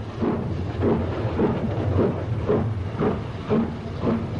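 BR Standard Class 4 4-6-0 steam locomotive with a double chimney working a train, its two-cylinder exhaust beating about twice a second over the steady rumble of the train.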